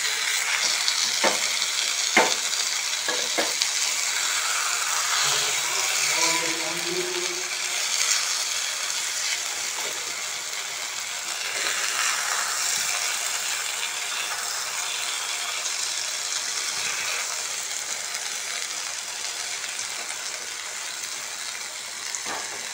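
Eggs and onion-tomato masala sizzling steadily in a nonstick kadai while a wooden spatula stirs and breaks up the eggs. A few sharp taps of the spatula against the pan come in the first few seconds.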